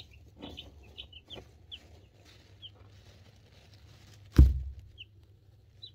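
Two-week-old chicks (Cream Crested Legbar, Buff Orpington, Black Sex Link and Partridge Silkie) peeping in short, high chirps scattered through. About four and a half seconds in comes a loud, low thump, the loudest sound.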